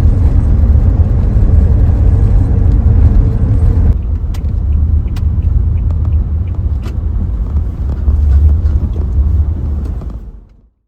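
A road vehicle driving, with a steady low road-and-engine rumble that fades out near the end.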